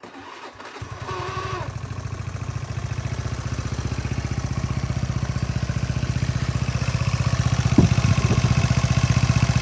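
Automatic scooter's single-cylinder engine started on the electric starter, with a brief starter whine, then idling with an even pulse and a rough rattle from the belt-drive case. The mechanic traces the noise to the crankshaft pulley, whose rubber ring is missing.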